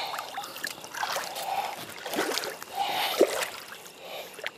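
Shallow water splashing and sloshing as hands grab a large crucian carp at the water's edge, the fish churning the water. The sharpest splash comes about three seconds in.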